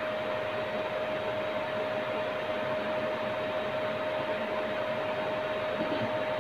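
Steady fan-like hiss with a faint steady whine in it.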